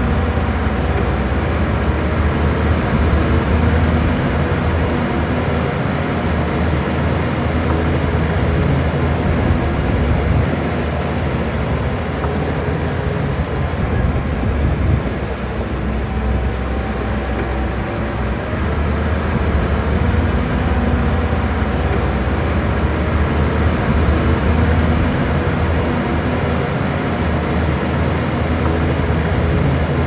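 Diesel engine of heavy earthmoving machinery running steadily, a deep drone that dips slightly in level around the middle.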